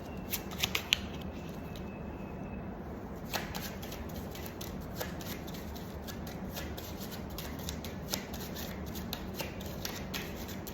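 Tarot cards being shuffled and handled: light flicks and taps of card stock, irregular and coming more often from about three seconds in, over a steady low hum.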